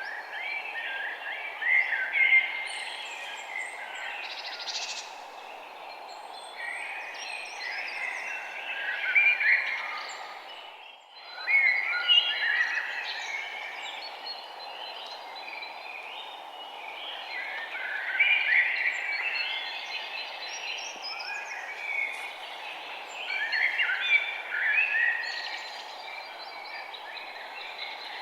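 Small birds chirping and twittering in a dense, overlapping chorus, over a steady background hiss. The sound briefly drops out about eleven seconds in.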